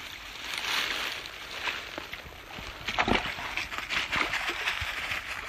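Footsteps and rustling through undergrowth as a handler follows a beagle on a blood track, with a few sharp knocks and cracks about three seconds in.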